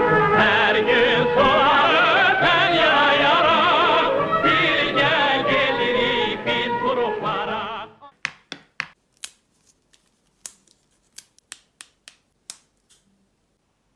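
A Turkish song with a singing voice and instruments, which cuts off abruptly about eight seconds in. Then a scatter of short, sharp, crisp clicks and snaps from homemade grissini breadsticks being handled.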